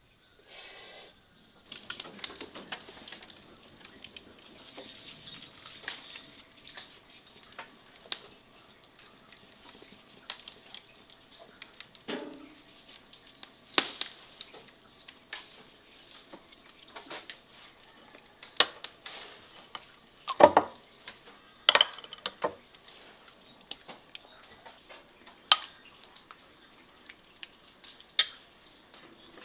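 Dishes and utensils clinking and knocking at an irregular pace, with a heavier knock about twenty seconds in.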